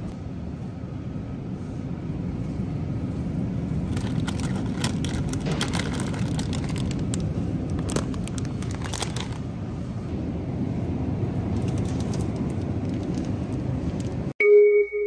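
Steady low background hum of a store aisle, with crinkling of plastic food packaging handled in short spells from about four seconds in. Near the end it cuts suddenly to a few clear sustained music notes.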